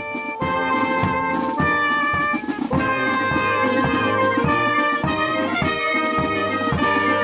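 A youth wind band playing a tune: clarinets, saxophone and brass carry the melody over snare drums and a bass drum keeping a steady beat.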